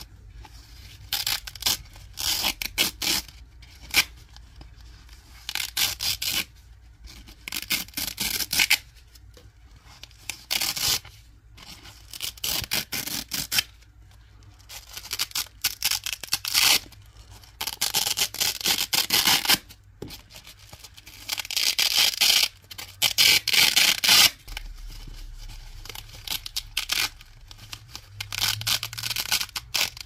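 Hook-and-loop (Velcro) strips and pads being peeled apart again and again, each pull a crackling rip of a fraction of a second to a couple of seconds, with short pauses between pulls.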